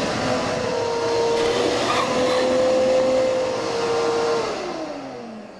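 Wet/dry shop vacuum running with a steady whine as it sucks the last water out of a toilet. About four seconds in it is switched off and its motor winds down in a falling whine.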